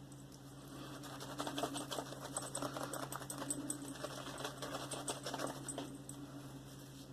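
Silvertip badger shaving brush working Mitchell's Wool Fat soap into a wet lather: a rapid, crackly swishing that grows louder about a second in and eases off near the end.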